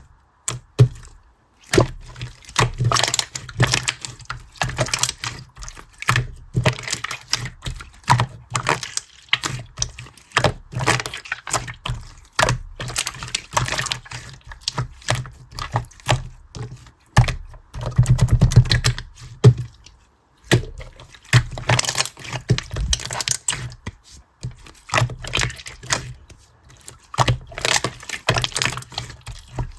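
Rapid, irregular clicking and tapping, with a few heavier thuds about two-thirds of the way through.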